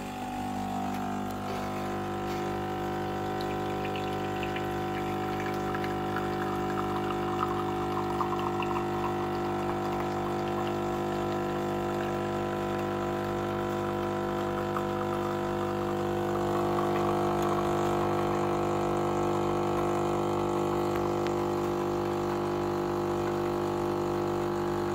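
Philips Saeco Xsmall espresso machine brewing: its water pump hums steadily while coffee runs in two streams into a glass cup, the hum getting a little louder about two-thirds of the way through. The coffee flowing freely with good crema shows that the brew path works again after the steam/hot-water valve was replaced.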